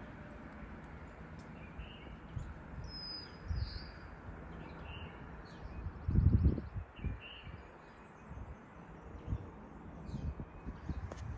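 Outdoor ambience: small birds chirping briefly now and then over a steady low background rumble, with a loud muffled low thump about six seconds in and a softer one a couple of seconds earlier.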